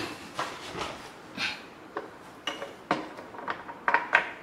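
Hands handling small hard parts and tools on a desk: an irregular run of light clicks and knocks, the sharpest ones near the end.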